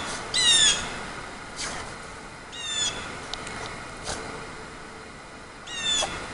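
Three short, high animal calls about two and a half seconds apart, each falling slightly in pitch, with a few soft thuds between them.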